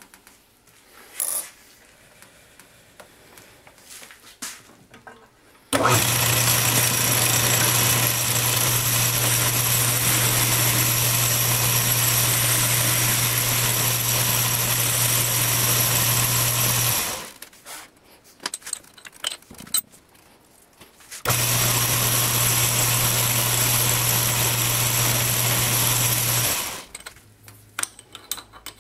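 Small metal lathe running under power with a steady low hum, facing and then center-drilling the end of a stress-proof steel bar held in a three-jaw chuck. It runs for about eleven seconds, stops, then runs again for about five seconds. Before it starts there are a few light clicks and knocks from the chuck being tightened by hand.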